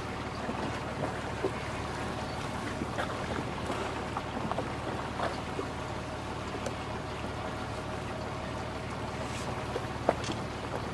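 Engine of an old wooden fishing boat running steadily at low speed, a low even hum. Scattered faint clicks and knocks sound over it, with one sharper click about ten seconds in.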